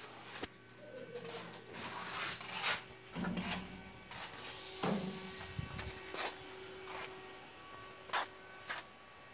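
Several sharp knocks and clicks with rustling in between, as in handling noise in a small room, over a faint steady hum.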